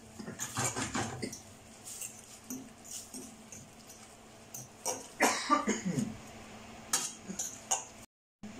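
A utensil clinking and scraping against a stainless steel pan as spaghetti is stirred and tossed in clam stock, in irregular clatters. About five seconds in comes the loudest scrape, with a short squeal falling in pitch.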